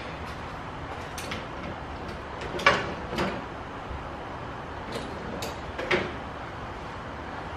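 Several short knocks and metallic clinks, about six spread over a few seconds, the loudest about two and a half seconds in: tools being handled and sorted through while a 10 mm metric socket is fetched.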